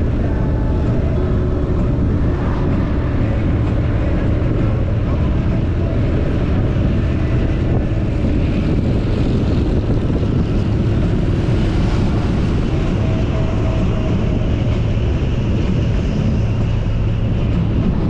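Motorcycle riding at steady road speed: a constant engine drone under a heavy rush of wind across the microphone.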